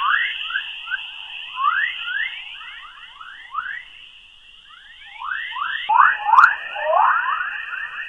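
Earth's space electromagnetic emissions converted to audio: a rapid stream of short, descending chirps over a steady high-pitched hiss. The chirps grow louder and more crowded about six seconds in.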